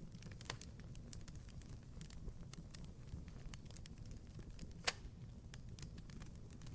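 Fireplace fire crackling: a steady scatter of small sharp pops over a low, even rumble, with one louder pop about five seconds in.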